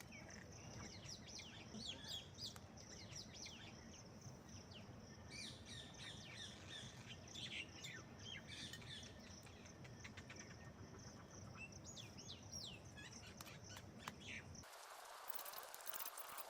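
Faint outdoor birdsong: many quick, short, falling chirps over a steady high drone and a low background rumble. Near the end the sound cuts abruptly to an even hiss.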